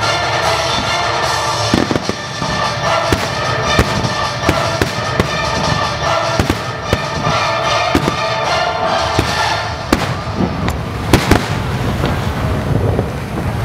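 Fireworks going off in a series of sharp bangs at irregular intervals, the loudest pair a little after two-thirds of the way through, with music playing alongside.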